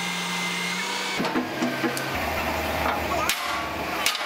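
Background music of held notes, with a deep bass line coming in about two seconds in. Near the end, a hammer strikes the steel excavator bucket twice with sharp knocks.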